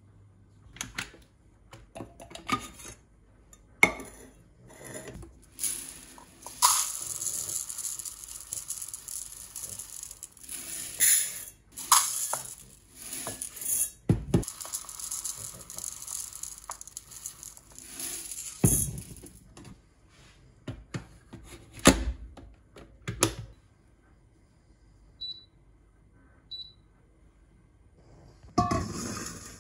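Rice being prepared in a small Bear rice cooker: clinks and knocks of a plastic measuring cup, bowl and cooker pot, with a long rushing hiss through the middle. Near the end come two short high beeps from the rice cooker's buttons as it is set going.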